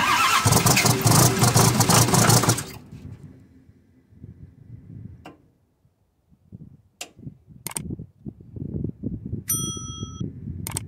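Starter cranking the cold 6.8-litre John Deere PowerTech inline-six diesel for under three seconds without it firing, typical of a hard cold start. After a quiet gap come a few sharp clicks and a short bell-like ding from a subscribe-button sound effect.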